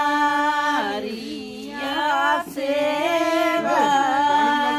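Women singing in long, drawn-out held notes, the melody dropping lower about a second in and climbing back up about two seconds in.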